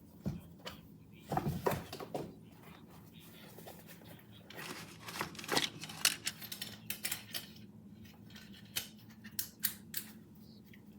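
Handling noises: a string of sharp clicks and short rustles, busiest about a second and a half in and again around five to six seconds in, with scattered single clicks near the end.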